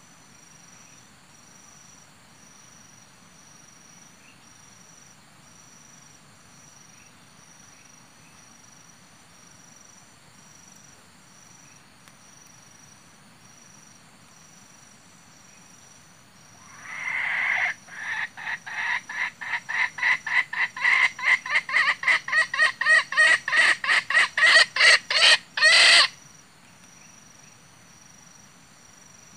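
Wild junglefowl clucking: a long run of sharp clucks that quicken and grow louder over about nine seconds, then stop abruptly. Steady cricket chirping continues underneath.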